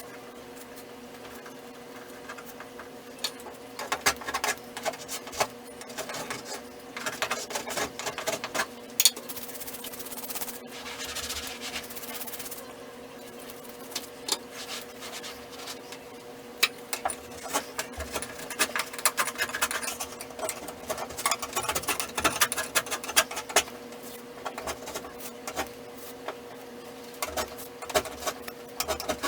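Irregular scraping, clicking and rustling of hand work on a wall, in clusters with pauses between, over a steady low hum.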